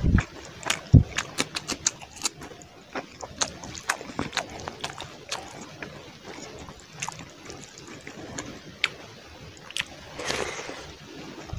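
Fingers squishing and mixing rice with fish curry gravy on a plate: a run of short wet clicks and squelches, with a low thump about a second in. Near the end comes a longer wet, smacking sound as a handful is brought up to the mouth.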